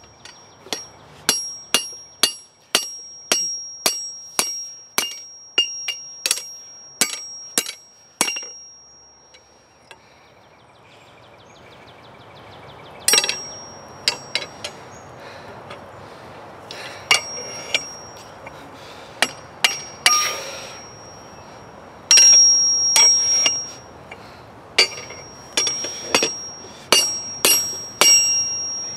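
Hand hammer striking a thick high-carbon steel bar on a steel anvil while bending it into a hook. Each blow gives a sharp clang and a high ring from the anvil, at about two blows a second at first. After a pause of a few seconds come scattered blows, then another steady run near the end.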